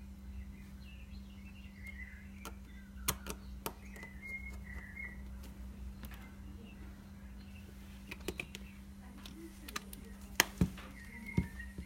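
Small clicks and taps of hand tools and parts during iPhone 6 reassembly, the sharpest a few in quick succession near the end, with short high chirps from birds in three brief spells and a steady low hum underneath.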